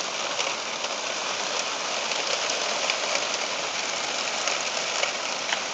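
Heavy rain falling in a thunderstorm: a steady, even hiss with no break in it.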